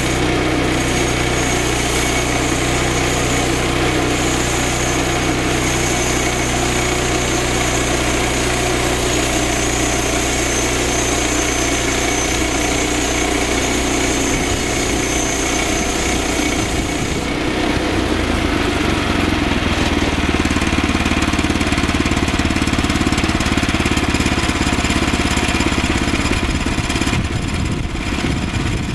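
Small gasoline engine of a Woodland Mills HM122 portable bandsaw mill running steadily, with a thin high whine. About two-thirds of the way through the whine stops and the low engine note changes.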